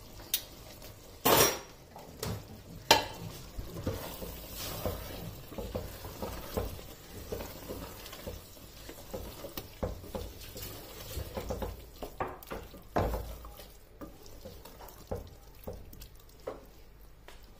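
A wooden spoon stirring a thick potato and radish-pod curry in a stainless steel pot, scraping and knocking against the metal, with the food sizzling faintly. There are a few sharper clinks, the loudest about a second and a half in.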